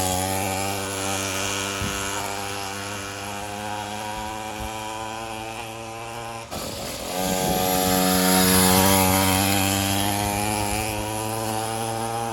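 50cc two-stroke mini moto (pocket bike) engine running steadily as it is ridden, growing fainter, dipping briefly about six and a half seconds in, then louder again.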